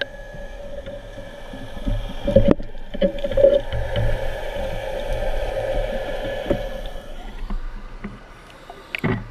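Muffled underwater sound through an action camera's waterproof housing in a diving pool: a steady hum with scattered knocks and water sloshing. The hum fades about seven seconds in as the camera comes up to the surface, and a sharp click follows near the end.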